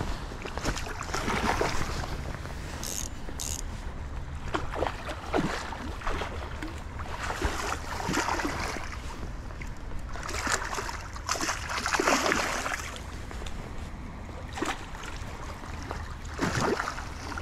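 A hooked chum salmon splashing and thrashing at the surface close to the bank, in several bursts a few seconds apart, over a steady low rumble of river flow and wind.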